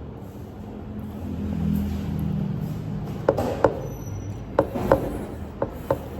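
A low vehicle rumble swells and fades over the first few seconds, as of a car or motorbike passing. Then come about six sharp clicks or taps, roughly in pairs.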